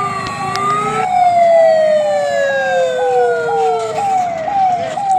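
Fire engine sirens. One cycles in a fast yelp, about two sweeps a second. Over it, a long wailing tone slowly falls in pitch and fades out about four seconds in.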